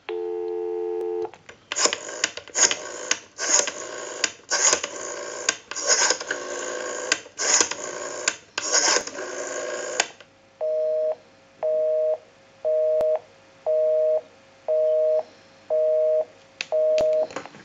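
A Western Electric 500 rotary desk telephone off hook. A steady dial tone plays for about a second, then a number is dialed on the rotary dial, each digit a wind-up and a clicking, whirring return. A busy signal follows near the end, beeping about once a second.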